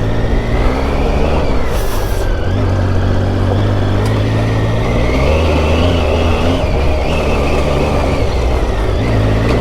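Triumph Tiger 800's three-cylinder engine running under steady throttle on a dirt track, its pitch shifting slightly up and down as the revs change.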